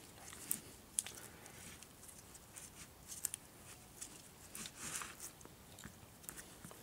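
Faint handling noises from gloved hands squeezing and turning a foam-filled quad tyre on a cloth: scattered light clicks and rustles of glove and rubber.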